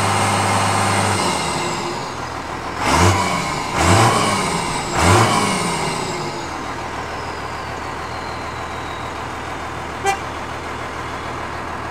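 1996 Dodge Ram 2500's 5.9L Cummins inline-six turbo diesel, with the turbo's silencer ring removed, dropping from steady raised revs, then three quick throttle blips about three, four and five seconds in. The high turbo whistle then slowly falls in pitch as the engine settles to idle. A single short click near the end.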